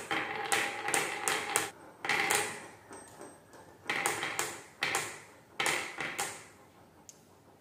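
Glass marbles rolling down a wavy groove in a painted wooden board and clicking against one another as they bunch up in the queue. The clicking comes in several bursts and dies away near the end.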